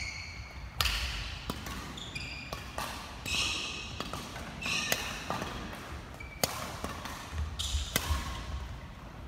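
Badminton rally: sharp racket strikes on the shuttlecock about once a second, mixed with court shoes squeaking briefly on the wooden gym floor.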